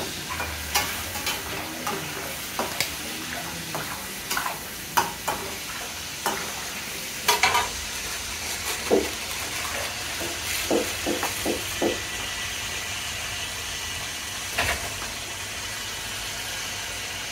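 Pork pieces sizzling steadily in hot oil in a wok on a gas burner, with a metal spatula scraping and clinking against the wok as they are stirred. The stirring thins out in the second half, leaving the sizzle.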